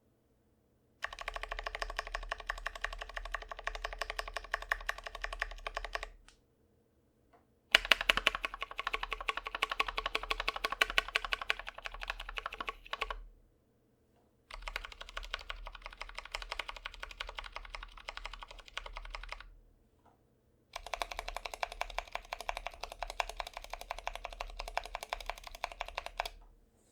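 Typing on an Idobao ID80 75% mechanical keyboard with Zealios v2 67g tactile switches and PBT keycaps: four runs of rapid keystroke clacks, each about five seconds long, with short pauses between them. The second run is the loudest.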